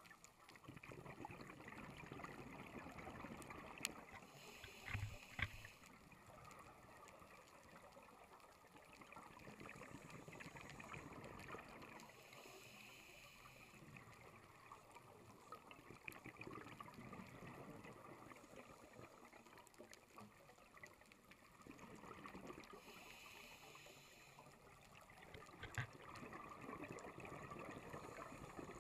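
Faint, muffled underwater sound of scuba breathing heard through a sealed camera housing: a hissing rush from the regulator every several seconds (about 5, 12 and 23 seconds in) and low bubbling between.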